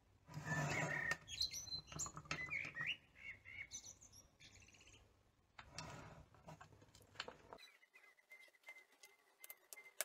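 Birds chirping in short, gliding calls in the background while a small moped engine is shifted and handled on a wooden workbench, with rustling and knocks of the metal casing. Near the end only faint metallic clicks of small parts remain.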